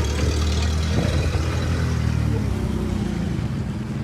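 A vehicle engine running steadily, its low hum easing slightly after about two and a half seconds.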